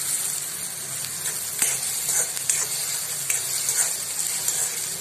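Chopped onion, tomato and green chilli sizzling in hot oil in a kadhai, with a metal spatula scraping and tapping the pan now and then as the mixture is stirred.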